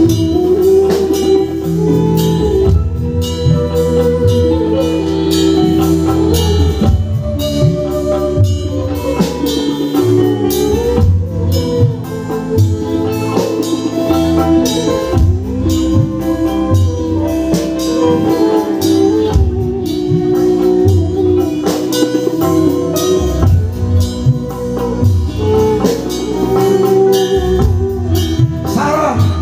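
Live band music played loud through stage speakers: keyboard with drums and percussion, sustained melody notes over a steady beat.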